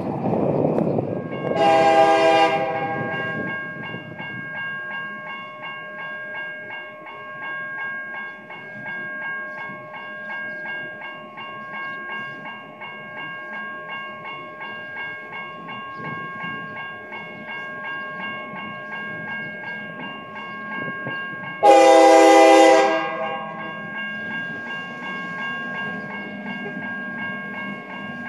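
Railroad grade-crossing warning bells ringing steadily while the horn of a CSX GP38-2 locomotive sounds two short blasts about twenty seconds apart, the second one louder. A car rumbles over the crossing at the start.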